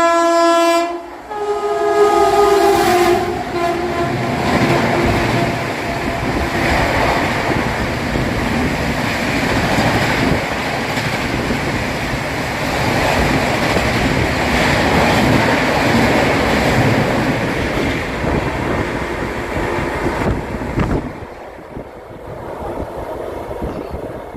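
An Indian Railways express train's locomotive horn sounds twice, a long note then a short shifting one over the first three seconds, and the train then runs through the station non-stop at about 130 km/h, its wheels and coaches rushing past loudly for some eighteen seconds. The noise drops off suddenly as the last coach goes by, leaving a fainter rumble.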